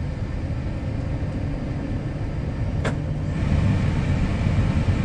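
Airbus A320 engine (CFM56-5B) running during a ground engine run, heard from inside the cockpit as a steady rumble. A single click comes near the middle, and the noise grows louder and brighter about three seconds in.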